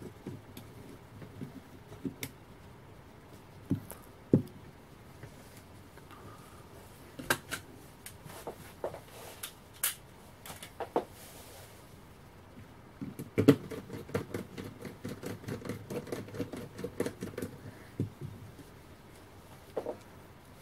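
Hands reassembling a small Imax B6 mini charger and its fan: scattered sharp clicks and knocks of small parts, then a run of rapid ticking and scraping a little past halfway through.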